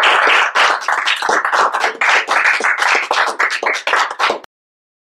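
Small audience applauding, the dense clapping thinning to scattered separate claps before it cuts off suddenly about four and a half seconds in.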